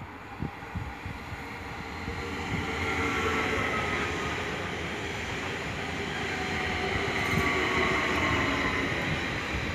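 HSL Stadler FLIRT (Sm5) electric commuter train approaching and running past, its wheels on the rails building to a steady rush with a faint electric whine that falls slightly in pitch.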